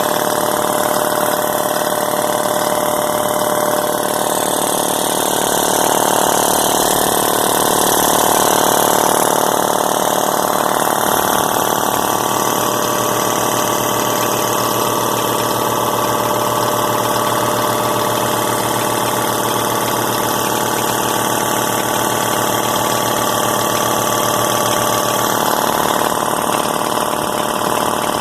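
New Masterforce 60-gallon air compressor running steadily as its pump charges the tank, early in its break-in. The owner hears a rattling up in the cylinder head during the run, which he fears means a defective unit.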